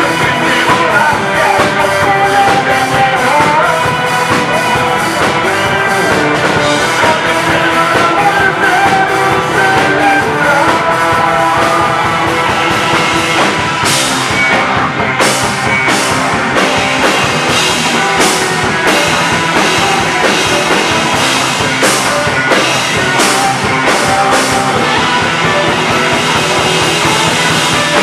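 Live punk rock band playing loudly: electric guitar, bass guitar and drum kit.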